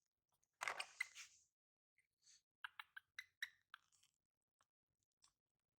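Faint, quick wet clicks of an animal chewing mango, coming one after another for about a second and a half partway through. They follow a brief louder noise about half a second in.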